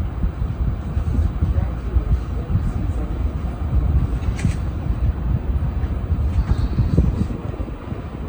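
Gulf Coast Riviera II ceiling fan with heavy arbor blades running. Its airflow rushes and buffets the microphone in a steady, uneven low rumble.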